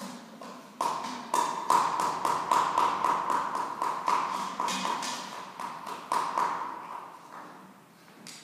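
Rubber-tipped pestle pounding oven-dried soil in a mortar to break it into individual grains: an even run of taps, about two to three a second, that stops near the end.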